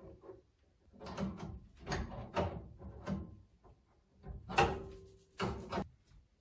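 A wrench working the battery cable terminal nuts in a Conext SW4024 inverter's connection box: about five short runs of clicks and knocks with brief pauses between them, the loudest a little past the middle.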